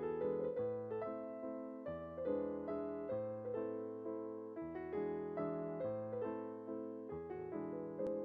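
Background piano music: a gentle melody of steadily plucked-off notes, each struck and fading.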